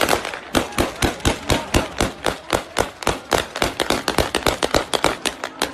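Gunfire shot into the air: a rapid, unbroken string of sharp shots, about six a second.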